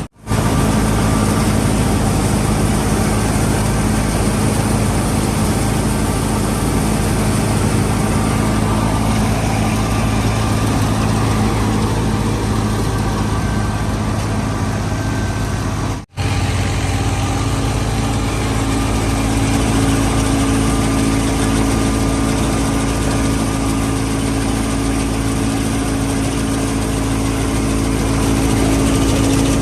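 Fiat 480 tractor engine running steadily while driving a wheat thresher, a constant mechanical din over the engine note. The sound cuts out for an instant about halfway through and resumes with a slightly higher engine pitch.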